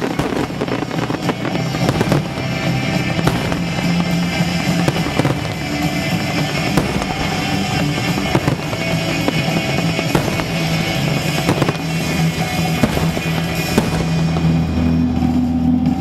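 Fireworks going off, with repeated sharp bangs and crackles, over music playing.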